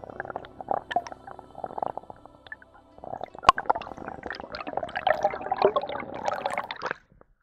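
Underwater water noise heard through a camera housing: irregular gurgling and crackling as the diver swims up toward the surface, with one sharp click about halfway through. It grows busier in the second half and stops abruptly near the end.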